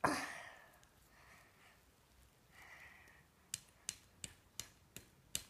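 Palm tapping repeatedly on the plastic plunger cap of a Ramune marble-sealed soda bottle, trying to force the glass marble down: six sharp taps, about three a second, starting about three and a half seconds in. A short rush of noise comes at the very start.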